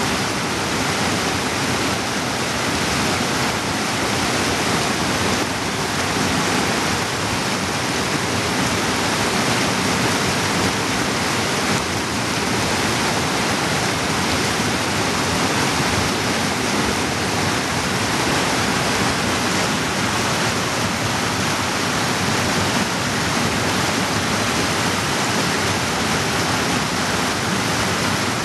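Steady rushing of a fast mountain creek tumbling over boulders in white-water cascades.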